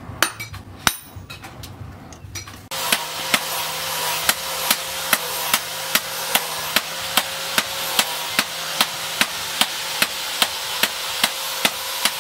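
A few light metal clinks, then, from about three seconds in, a hammer striking metal in an even rhythm of about two and a half blows a second over a steady hum.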